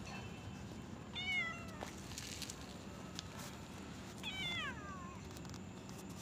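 Two cat meows: a short one about a second in, then a longer one falling in pitch about four seconds in.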